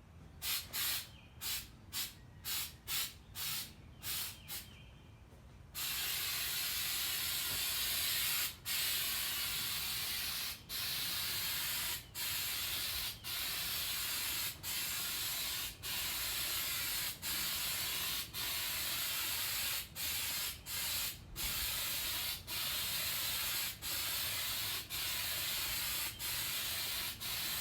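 Aerosol spray can of undercoating hissing: a quick series of short bursts for the first six seconds, then long spray passes broken by brief pauses every second or so.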